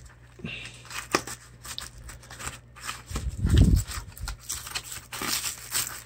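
Hands handling a small bamboo box and the plastic wrapping around the grinder inside it: scattered light clicks and plastic crinkling, with one short low bump about three and a half seconds in.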